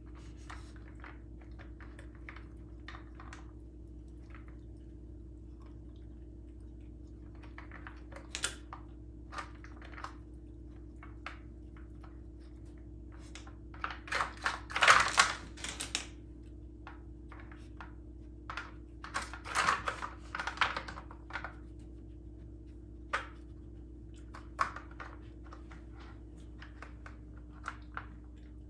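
Puppy nosing and pawing at a plastic Dog Brick puzzle feeder, scattered clicks and knocks of its plastic sliders and pegs as she digs out kibble. The clatter comes in two longer, louder flurries about halfway through and again a few seconds later.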